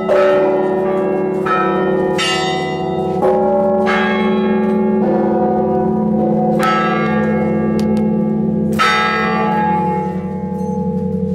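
Bells of the Uspensky Cathedral being rung in the Orthodox manner. Smaller bells of different pitches are struck one after another, about eight strikes at uneven spacing, and each keeps ringing over the steady hum of the deep bells.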